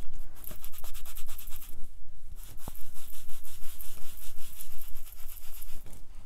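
Mini round foam ink blending tool rubbing ink onto Arches hot-pressed watercolor paper in small quick circles: a fast rhythmic scrubbing of foam on paper, with a brief pause about two seconds in.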